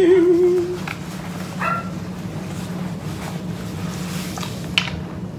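A dog whining, with a short high whimper about two seconds in, over a steady low hum. A light click or two of cutlery on a plate.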